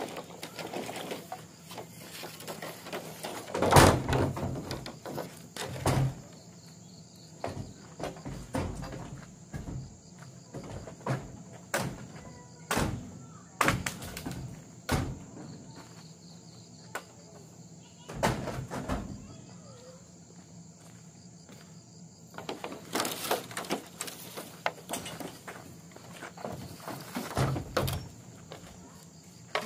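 Irregular knocks and thumps of objects being handled, the loudest about four seconds in, over a steady high-pitched insect drone.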